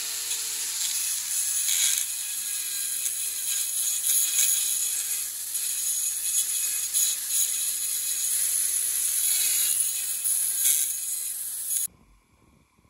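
Handheld rotary tool with a small abrasive wheel grinding the steel claw of a hammer head, a steady high-pitched grinding hiss with a faint motor whine. It cuts off abruptly near the end.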